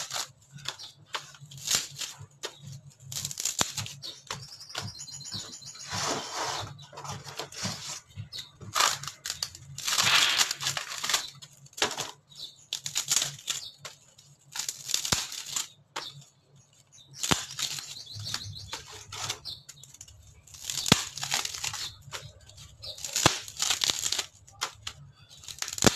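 Strips of old, dry wooden ceiling board being split and torn apart by hand: repeated rasping, splintering tears of thin wood layers in irregular bursts of about a second each.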